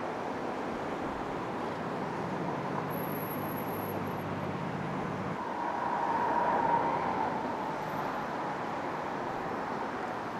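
Road traffic: a steady hum with a vehicle engine droning low for the first five seconds or so, then a vehicle passing, loudest about six to seven seconds in.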